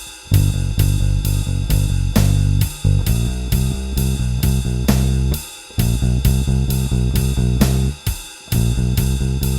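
Electric bass guitar with a Seymour Duncan Designed pickup, run through a Studio Bass compressor, playing a slow blues bass line along with a drum kit. The bass phrase repeats with short breaks about every three seconds under steady cymbal strokes about three a second.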